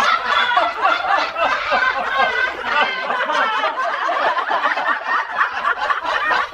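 Several people laughing together, snickering and chuckling in overlapping voices without a break.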